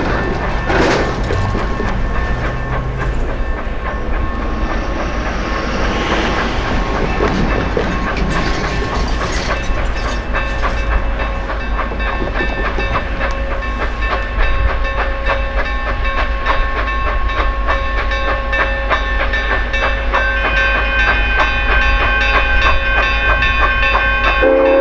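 A train running on rails with a steady rumble and rhythmic clatter. A whistle starts right at the end.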